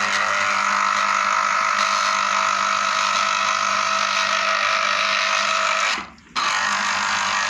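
Electric blender motor running steadily at speed, grinding half an orange and half a lemon. It stops for a moment about six seconds in, then starts again.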